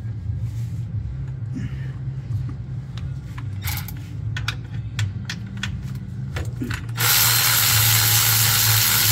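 Cordless electric ratchet with a 10 mm socket running for about two seconds near the end, spinning out a transmission filter bolt. Before it starts there are scattered clicks and knocks as the tool is fitted onto the bolt, over a steady low hum.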